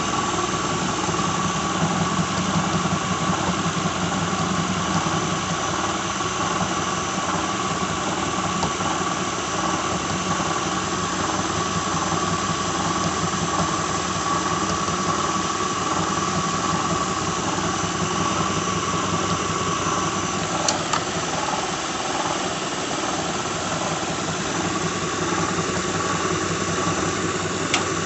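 2006 Lincoln Town Car's 4.6-litre V8 running steadily with a constant whine and a light rattle from the front of the engine, which the owner puts down to a bad harmonic balancer. Two brief clicks sound in the second half.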